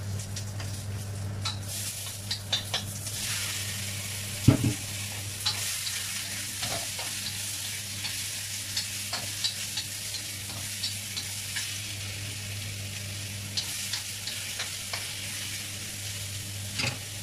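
Pieces of beef tenderloin frying in hot oil with ginger and garlic in a wok: a steady sizzle that grows stronger about two seconds in, with the clicks and scrapes of a wooden spatula stirring against the pan. One loud knock comes about four and a half seconds in.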